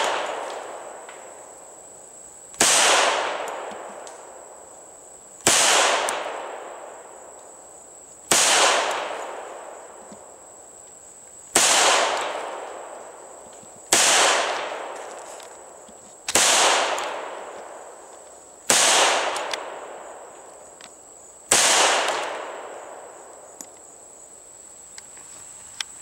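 Hi-Point .45 ACP pistol fired eight times in slow, evenly paced shots about every two and a half to three seconds, each report trailing off in an echo over about two seconds. A few light clicks of the pistol being handled come near the end.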